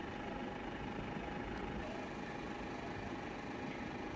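Steady background hum and hiss with a faint constant whine, unchanging throughout, with no distinct event.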